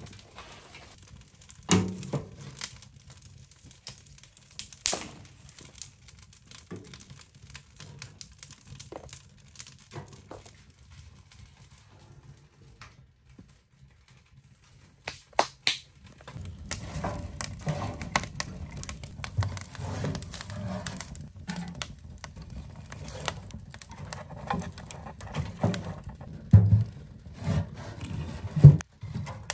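Split firewood and kindling being handled into a small steel wood-burning stove, with wood clunking against the steel firebox and the stove door and its spring-loaded draft vent knocking. There are sharp knocks about two seconds in and two loud ones near the end, with a busier stretch of small clicks and crackles in the second half.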